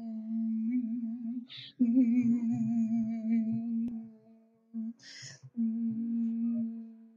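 A person humming a long, mostly steady low note that wavers now and then. It breaks off twice, with a short breathy hiss at each break.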